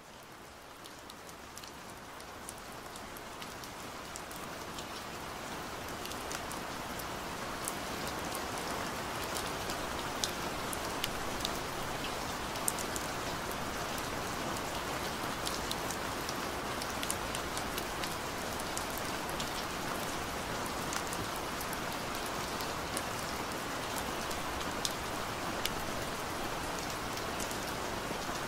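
Recorded rain: an even hiss with scattered sharper drop ticks. It fades in over the first several seconds, then holds steady.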